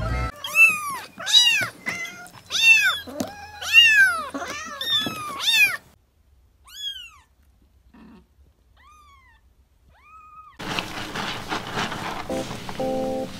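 Kittens meowing: a quick run of loud, high meows, each rising then falling in pitch, for about six seconds, then a few fainter meows spaced more than a second apart. Near the end a steady hiss with music comes in.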